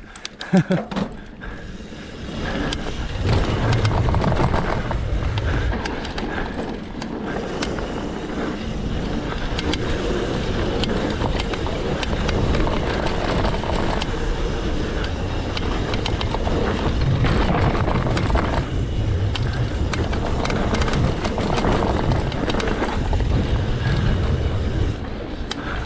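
Mountain bike descending a dirt singletrack: wind rushing over the camera microphone and tyres rolling on dirt, with the bike rattling and clicking over bumps. The rush swells about two seconds in and stays loud.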